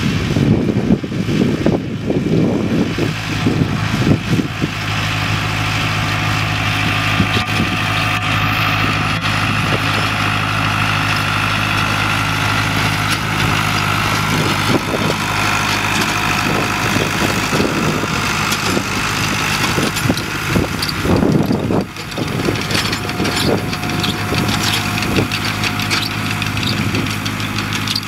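Farm tractor engine running steadily at a constant pitch while pulling a hay tedder through cut hay. Gusts of wind buffet the microphone near the start and again about three-quarters of the way through.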